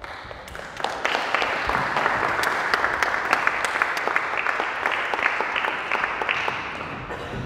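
Audience applauding. It swells about a second in, with a few sharper individual claps standing out, then tapers off near the end.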